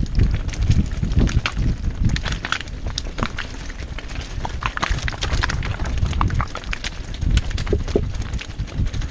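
Mountain bike rattling down a rocky trail: tyres crunching over loose stones with many sharp clicks and knocks, over a heavy rumble of wind buffeting the camera microphone.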